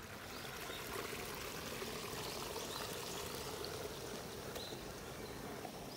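Water running steadily into a garden pond, a continuous trickling pour.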